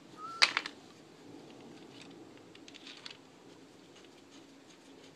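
Plastic timing chain guide and chain being handled on a Saab B235R engine: a brief squeak, then a sharp click about half a second in, followed by a few faint clicks and light rattles.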